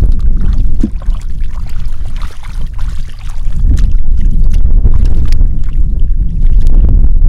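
Heavy wind rumble on the microphone, with small splashes and sloshing of hands working through shallow muddy water.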